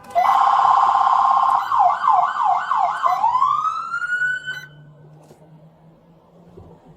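Police car siren sounded briefly and loudly. A steady buzzing tone lasts over a second, then four quick yelp sweeps follow, then a rising wail cuts off suddenly about four and a half seconds in.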